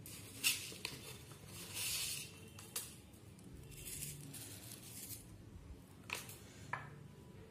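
A spoon clicking a few times against a steel tiffin box, with soft rustling of salt and sugar being sprinkled from it onto a wet prawn marinade.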